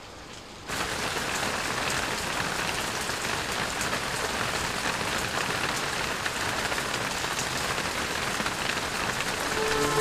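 Heavy rain falling steadily, cutting in abruptly less than a second in.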